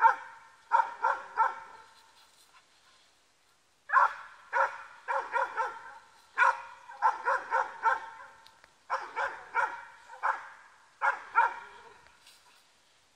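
Catahoula leopard dog barking in quick runs of three or four, with a pause of about two seconds early on. This is bay barking at a wild boar during hog-dog training.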